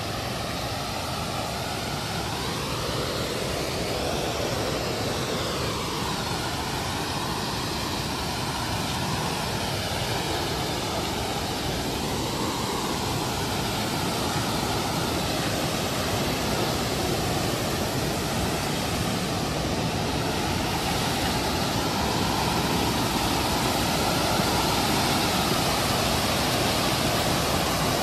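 Creek cascading over granite slabs: a steady rush of whitewater that grows a little louder near the end.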